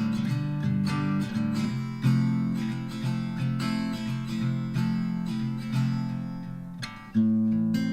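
Background music: plucked and strummed acoustic guitar, with a fresh strummed chord a little after seven seconds in.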